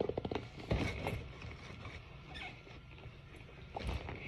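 Rustling, scraping and light taps as a heart-shaped Valentine's candy box is handled and its lid worked open, busiest in the first second and again near the end.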